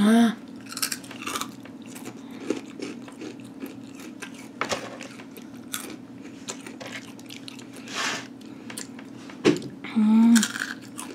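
Someone biting and chewing crunchy spicy chips, with scattered sharp crunches over a faint steady hum. A short vocal sound comes near the end.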